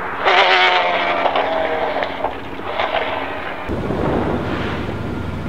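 BMW V12 LMR's V12 engine fading away, its pitch falling in steps. About three and a half seconds in, this gives way suddenly to a low engine rumble with wind noise on the microphone.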